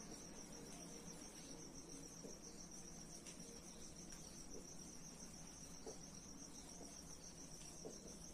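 Near silence with a faint, steady, high-pitched pulsing cricket trill, and a few faint taps of a marker writing on a whiteboard.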